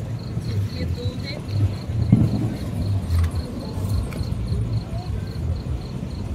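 A cricket chirping steadily in rapid, even high pulses, about four or five a second, over a low rumble.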